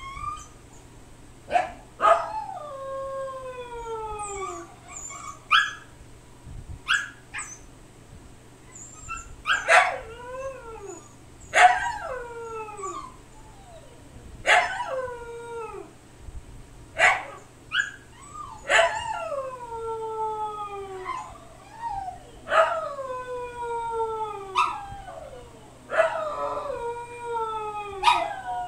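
Huskies howling over and over. Each call starts with a sharp yip and slides down into a long falling howl, one every two to three seconds. The howling is a protest at being kept in their pen.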